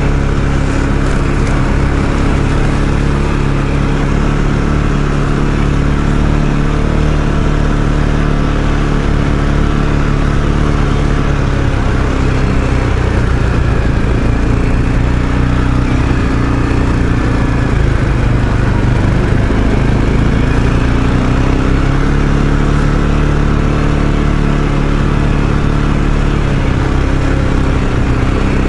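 ATV engine running steadily while riding, its pitch dipping slightly about midway and then picking back up.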